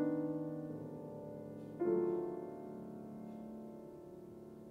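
Solo grand piano: a chord rings and slowly fades, and a new chord is struck about two seconds in and left to ring away.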